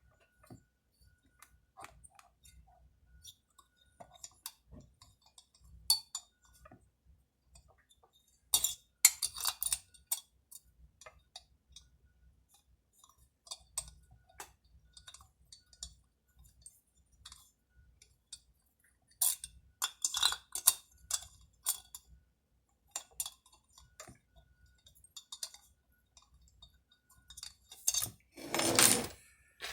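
Small metal hand tools clicking and clinking against bolts and the chainsaw's cylinder while the bolts are worked in, in irregular clusters, with a louder, longer noise near the end.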